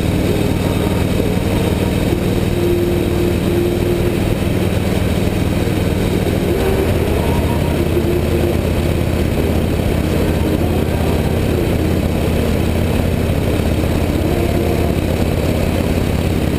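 Harley-Davidson motorcycle's V-twin engine running steadily at highway cruising speed, heard with wind and road noise. The engine note shifts about six and a half seconds in.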